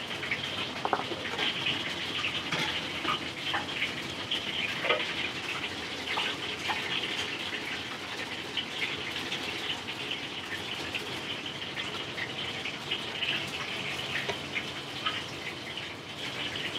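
Food sizzling and crackling in hot oil in a wok, with many small sharp pops.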